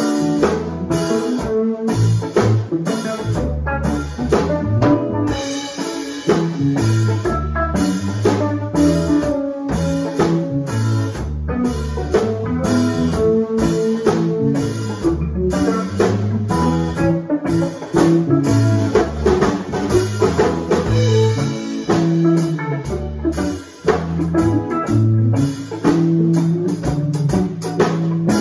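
Live instrumental band playing: two electric guitars, electric bass and a Gretsch drum kit keeping a steady beat, with no vocals.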